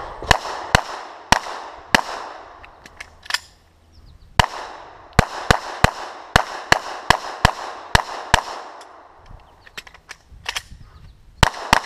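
9mm Glock 34 pistol fired in quick strings on a timed course of fire: four shots in the first two seconds, a short pause, then a fast run of about a dozen shots, a gap, and a couple more shots near the end. Each sharp crack trails off in a short echo.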